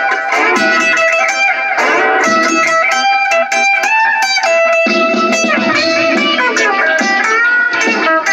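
Electric guitar playing a blues instrumental: a busy run of picked notes with several bent notes.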